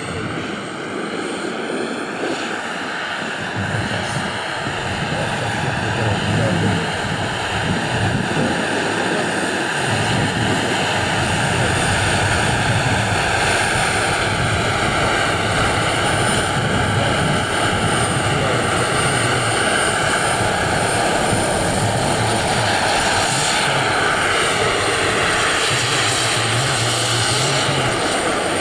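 Turbine-powered scale model Mi-24 helicopter flying, its Pal Taurus turbine and rotors making a steady, loud whine and rush. The pitch drifts slowly, and it grows a little louder over the first few seconds.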